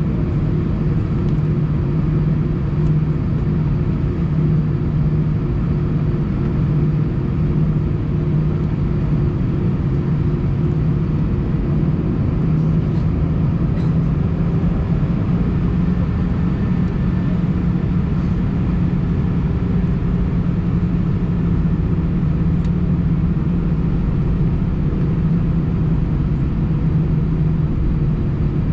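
Steady cabin drone of an Airbus A319 taxiing slowly at low engine power, heard inside the cabin over the wing: an even low rumble with a steady low hum through it.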